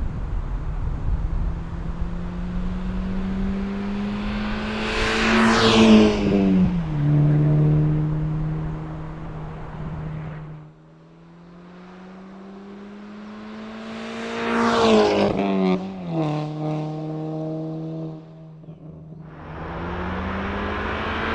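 MK6 Volkswagen GTI's turbocharged four-cylinder exhaust under acceleration, the revs climbing and then dropping sharply at a gear change, twice.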